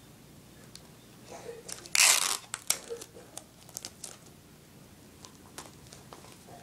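Paper and tape being handled: a short, loud rip about two seconds in, followed by scattered crinkles and clicks.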